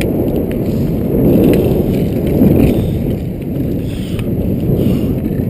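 Inline skate wheels rolling over rough asphalt close to the microphone: a steady low, gritty rumble that swells a little in the middle.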